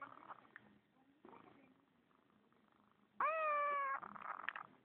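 A kitten meowing once, about three seconds in: a single meow of under a second whose pitch rises quickly and then holds steady.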